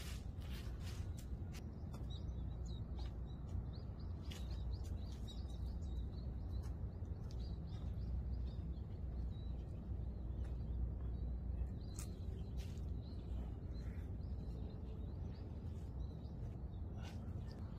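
Outdoor background noise: a low, steady rumble with scattered short bird chirps and faint clicks.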